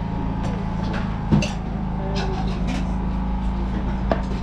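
Busy tea-stall background: a steady low hum with scattered clinks and knocks of teapots and crockery, and a louder thump about a second and a half in.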